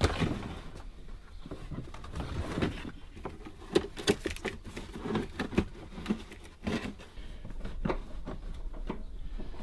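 Volvo 850 moulded floor carpet being handled and pressed into the footwell: rustling and scuffing of the felt-backed carpet, with scattered light knocks and clicks.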